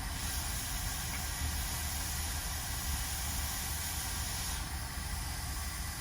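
Steady hiss of blowing air from a hot air rework station, with a low hum underneath.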